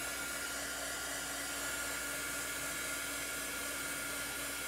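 Handheld hot-air dryer running steadily, a constant rush of air with a steady whine, blown over freshly applied chalk paste to dry it.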